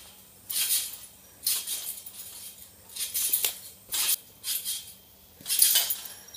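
A trampoline being bounced on, its springs and mat giving a short hissing jangle with each bounce, about once a second, with a faint steady low hum beneath.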